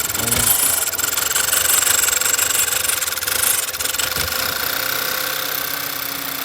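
Car engine running steadily, with a thin high whine over it.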